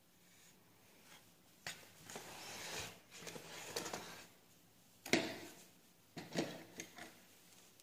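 Handling noises: scattered sharp clicks and knocks with some rustling, the loudest a sharp knock about five seconds in.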